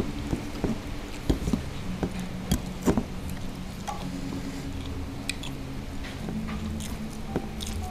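Eating sounds at a meal: scattered light clicks and taps of hands and food on enamel plates, over soft background music with low held notes.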